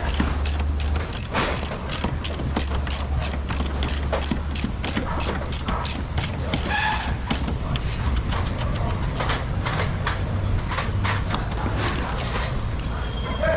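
Steady rapid clicking, about four sharp clicks a second, over a low steady hum.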